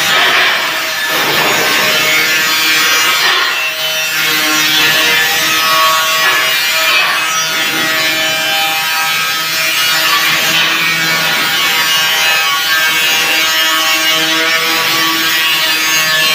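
Angle grinder cutting and grinding steel angle bar, a steady abrasive grinding with a motor whine whose pitch shifts as the disc is pressed into the metal.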